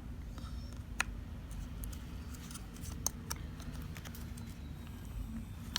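Light, scattered clicks and small scrapes of an SSD and its converter being handled and fitted into a laptop's SSD slot, over a low steady hum.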